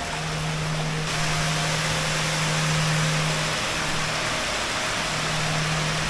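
Rushing water of a stream and small waterfalls, a steady hiss that grows louder about a second in, with a soft sustained low musical note underneath.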